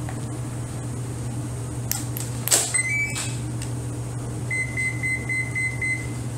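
A battery lead snapped into the connector with sharp clicks about two seconds in, then the electronic speed controller's power-up tones: two short rising tones, followed near the end by a run of quick, evenly spaced beeps at one pitch, sounded through the EDF motor as it arms. A steady low hum runs underneath.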